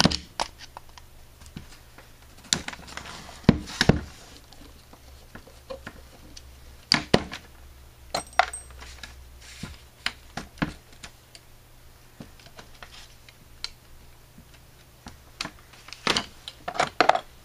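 Irregular metallic clicks and clinks of a Carter RBS one-barrel carburetor being taken apart by hand: a screwdriver working at its screws, the cast body turned over, and tools set down on the table, with a quick run of clicks near the end.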